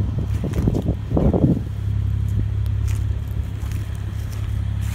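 A motor running steadily with a low, even hum, and a short, louder burst of rustling noise about a second in.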